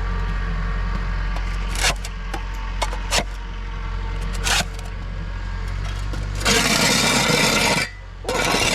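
A tractor engine running steadily while its front-end loader bucket scrapes over a concrete floor, with a few sharp knocks. There is a long scrape about two-thirds in and another starting near the end.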